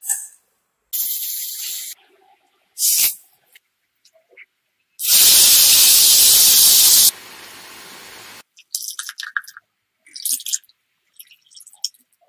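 Close-up kitchen sounds: sugar sprinkled into a ceramic frying pan with short light hisses, then mango juice poured in a thick stream into the pan, a loud splashing hiss for about two seconds that drops to a softer trickle. Small clicks and taps follow near the end.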